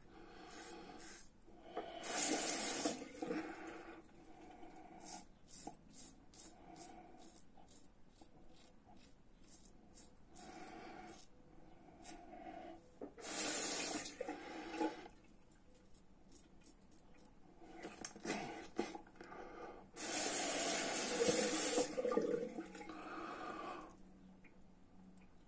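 Goodfellas Italiko double-edge safety razor with a Feather blade scraping through lathered stubble in short, quick strokes. A tap runs briefly three times, once near the start, once about halfway and longest near the end, as water for rinsing the razor.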